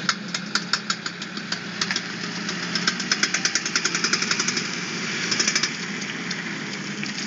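A car's front drive shaft clicking rapidly, about six clicks a second, over the steady sound of the running engine. This is the clicking while turning that points to a worn drive shaft joint.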